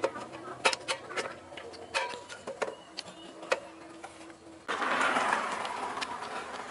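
Sharp metal clinks and knocks of motorcycle frame parts and tools being handled and fitted together. About two-thirds of the way in they give way suddenly to a steady rushing noise.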